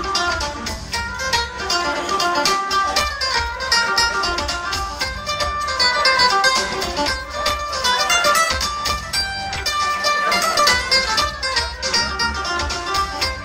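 Live amplified folk band playing an instrumental tune. Picked mandolin and guitar notes carry the melody over a steady electric bass and a drum kit.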